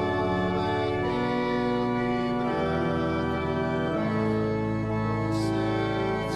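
Church organ playing a hymn tune in held chords, the chord changing every second or so.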